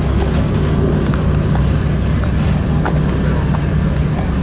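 A vehicle engine running steadily at low speed: a continuous deep hum, with a few faint clicks over it.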